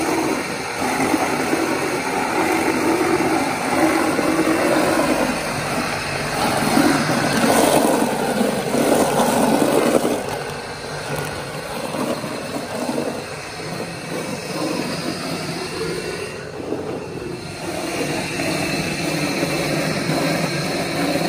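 Electric giò grinder (a bowl-type chopper) running, pounding raw horse meat into a smooth paste. A steady mechanical noise, louder for the first half and somewhat quieter after about ten seconds.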